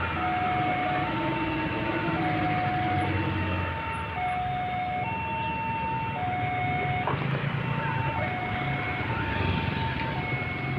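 Railway level-crossing warning alarm sounding a steady electronic two-tone signal, alternating high and low about once a second, warning that a train is approaching. Motorcycle and light truck engines run underneath.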